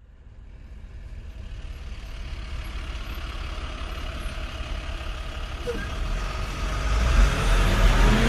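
A motor vehicle's low engine rumble and road noise, growing steadily louder over several seconds as if approaching, with the deep rumble strongest near the end.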